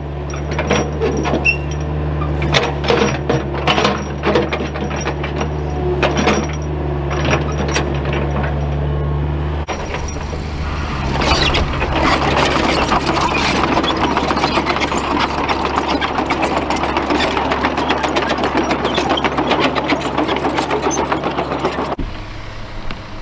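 A motor vehicle's engine running with rattling knocks. About ten seconds in its note changes and the sound gets denser and louder, then it drops suddenly to a quieter idle near the end.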